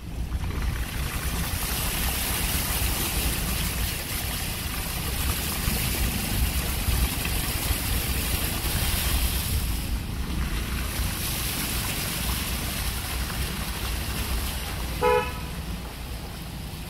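Steady hiss of light rain over standing floodwater, with a low rumble of wind on the microphone. A vehicle horn toots once, briefly, about fifteen seconds in.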